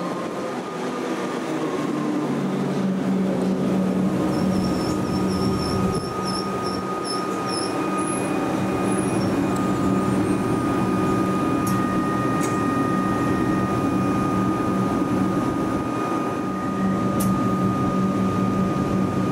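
Melbourne Metro electric suburban train running past: steady rail and running noise with a low hum and a thin, steady high whine, growing a little louder over the first few seconds, with a couple of sharp clicks in the second half.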